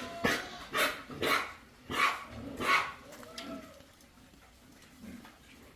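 Five short, sharp animal sounds in quick succession, about half a second apart, followed by a faint low call.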